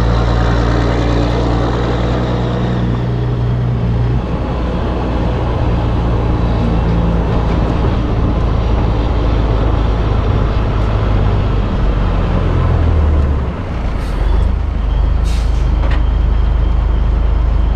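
Caterpillar 3406B diesel of a 1984 Peterbilt 362 cabover, running loud and steady through straight exhaust stacks as the truck rolls slowly. The note dips briefly near the end, followed by a couple of short air-brake hisses.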